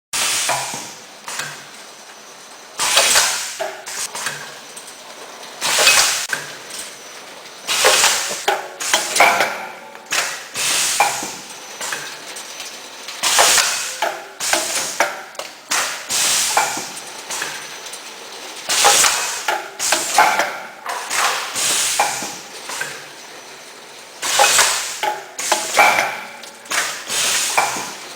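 Automatic tofu packaging machine running, a steady mechanical clatter broken by loud, sharp clacks and bursts every one to three seconds as it cycles.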